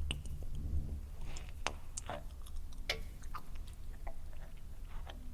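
Eerie sound-effect ambience made with a saxophone: a steady low drone under irregular wet, slimy clicks and drips, several of them sliding down in pitch.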